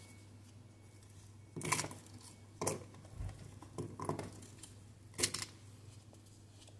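Chopped onion pieces dropped by hand into a stainless steel mixer-grinder jar, making a handful of short, light knocks against the steel a second or so apart.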